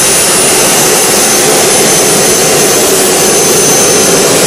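MTT Y2K turbine superbike's Rolls-Royce Allison gas-turbine engine running steadily at a standstill: a loud, even jet rush with a steady high whine.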